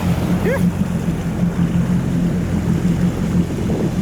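An engine idling steadily with a constant low hum, amid wind and sea noise. A short rising squeak comes about half a second in.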